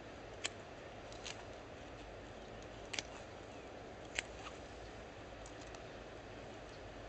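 Hand pruning shears snipping the branches of a young Guara almond tree: a few short, sharp cuts spaced a second or more apart, over a steady outdoor hiss.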